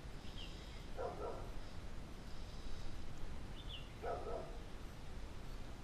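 A dog barking twice, single barks about three seconds apart, over a steady outdoor background hiss.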